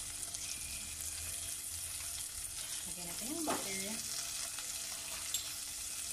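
Sliced red onions frying in hot oil in a pan, a steady sizzle. A brief hum of a voice comes about halfway through.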